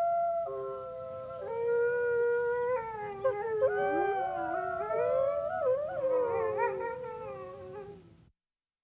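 A small pack of wolves howling in chorus: several long, steady howls at different pitches overlap, then from about three seconds in more voices join with quicker, wavering, gliding howls. The chorus fades and stops shortly before the end.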